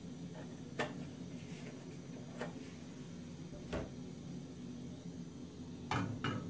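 Frying pan of oil heating on a gas stove: a few sharp ticks and clicks, two close together near the end, over a steady low hum.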